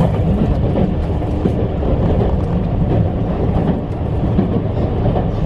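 Steady low rumble of a vehicle in motion: running noise that keeps an even level throughout, with a faint steady hum over it in the first second or so.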